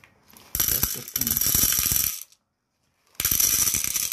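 Dry popcorn kernels poured from a bag into the metal chamber of a hot-air popcorn maker, a dense clatter of hard kernels rattling onto metal. It starts about half a second in, breaks off for about a second near the middle, then goes on.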